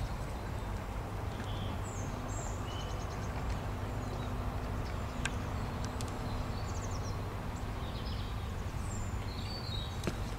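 Outdoor background with a steady low rumble, small birds chirping and trilling now and then, and a few faint knocks.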